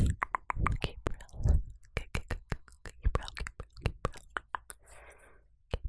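Close-miked dry mouth sounds: rapid, irregular tongue and lip clicks, with brief breathy whispers in between.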